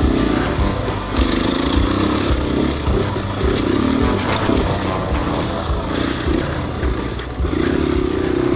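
Dirt bike engine running at a low, uneven pace as the bikes ride slowly, with a steady low rumble throughout; most likely the KTM 500 EXC-F's single-cylinder four-stroke carrying the camera.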